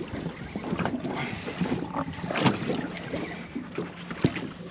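Wind buffeting the microphone and water moving around a small boat's hull, with a faint steady low hum and a few sharp knocks, the loudest about two and a half seconds in and again near the end.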